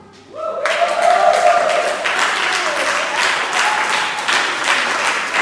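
Audience applauding, starting about half a second in as the last sung note fades, with a voice calling out over the clapping.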